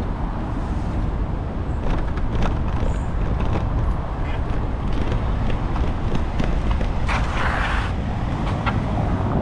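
Lime electric bike riding over cobblestones: a steady rush of wind on the microphone and road noise, with scattered rattles from the bumpy stones and city traffic around it. A brief hiss about seven seconds in.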